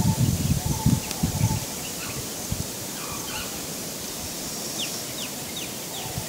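A low rustling rumble for the first second and a half or so, then a steady outdoor hiss. Near the end a bird gives four short, falling whistled notes.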